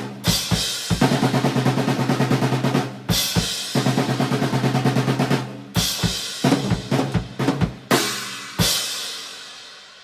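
Drum kit played with a deep, low-tuned 14x10-inch snare drum: fast snare rolls and fills broken by bass drum kicks and cymbal crashes. It ends on a final crash that rings and fades away.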